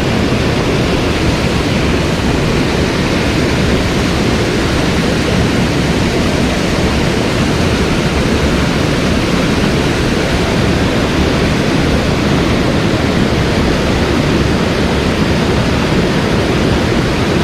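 Steady rushing water of a mountain headwater stream, an even wash of noise with no breaks.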